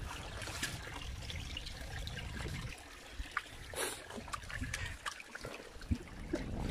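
Water trickling steadily in a shallow concrete channel, with a few small clicks and knocks and a brief splash about four seconds in.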